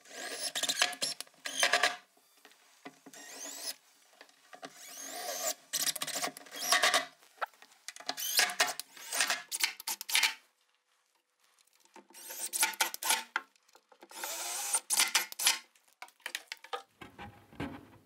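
Cordless drill/driver running in a series of short bursts of one to three seconds, separated by brief pauses, as it drives screws into plywood.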